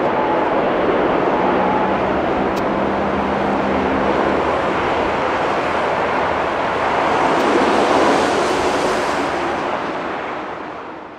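Jet airliner's engines passing close by: a steady rushing roar that swells about eight seconds in, then fades away near the end.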